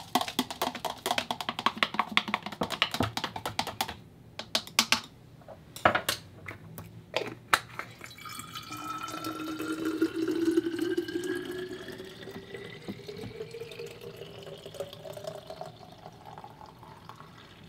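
A utensil stirring green juice in a plastic juicer jug: rapid clinking and scraping for about four seconds, then a few separate taps. From about eight seconds in, juice pours from the jug into a glass bottle, a liquid stream whose pitch rises steadily as the bottle fills.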